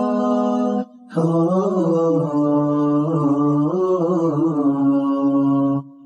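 Background music: a slow vocal line of long held, slowly wavering notes, cutting out briefly about a second in and again near the end.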